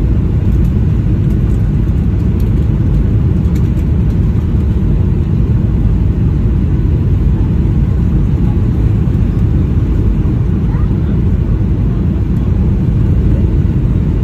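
Steady, loud cabin noise of a Boeing 737-800 on approach, heard from a window seat over the wing: the CFM56 engines and the rush of air over the airframe, heaviest in the low range.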